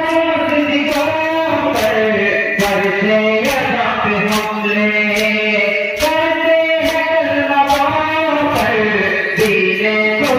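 Male mourners chanting a Muharram noha in unison, a slow sung melody, with hand-on-chest matam slaps keeping a steady beat a little faster than once a second.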